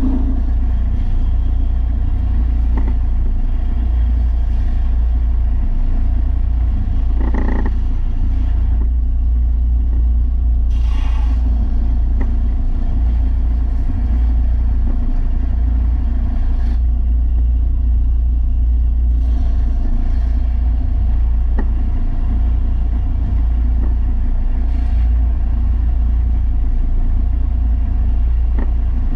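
Electric belt sander running steadily with a loud low hum, with brief higher-pitched touches about seven and eleven seconds in.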